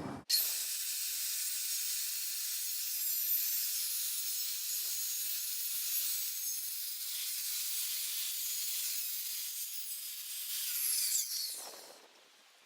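Circular saw ripping lengthwise through a wooden 2x2, a steady hissing cut that starts suddenly and dies away near the end.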